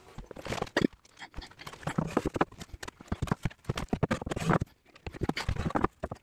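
Wooden shelf boards knocking and clattering as they are handled and fitted into a timber shelf frame: many irregular sharp knocks.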